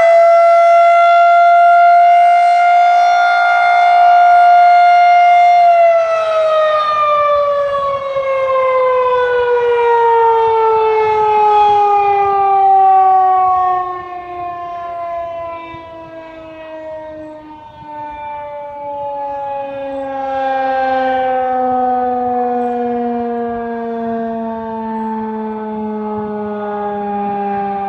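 Federal Signal 2001-130 tornado siren sounding loud at its top pitch for about six seconds, then winding down in a long, slow fall in pitch, its loudness swelling and dipping as it goes. This is the siren being canceled at the end of its attack cycle and its rotor coasting down.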